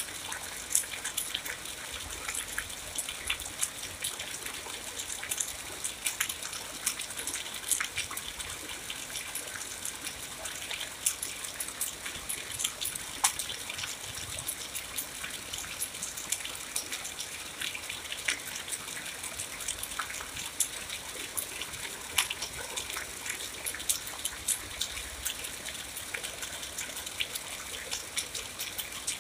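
Steady rain: a continuous hiss of falling water dotted throughout with many sharp, close drop taps.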